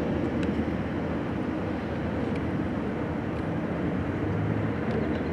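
Parked Metrolink diesel locomotives idling, a steady low drone.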